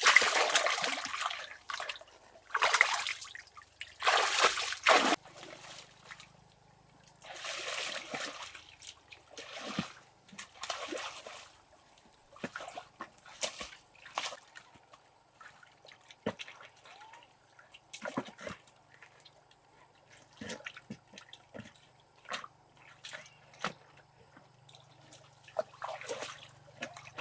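Water splashing and sloshing in several loud bursts over the first five seconds and again at about eight seconds, then quieter trickles, drips and small splashes.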